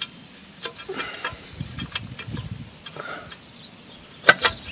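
Metal skid plate and its bolts being handled while it is fitted to a motorcycle frame: scattered light taps and clicks with some rustling, then two sharp clicks close together near the end, the loudest.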